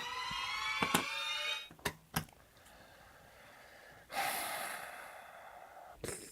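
Greedy Granny toy's electronic sleeping sounds from its small speaker after a press of its button: a drawn-out rising tone that ends about two seconds in, then a breathy, hissing snore-like exhale about four seconds in. Several sharp clicks come in between.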